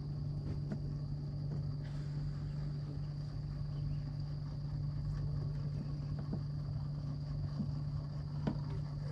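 Electric trolling motor humming steadily at a constant speed, with a thin, steady high insect trill above it and a few light knocks on the boat near the end.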